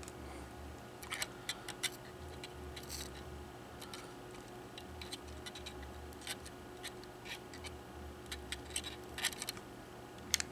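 Light scattered clicks and scratches of small hand work while soldering a wire to a battery connector, over a faint steady hum.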